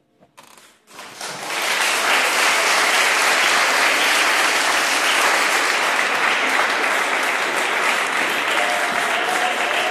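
An audience of children applauding. It starts out of near silence about a second in, swells within half a second, and then keeps up a steady, dense clapping.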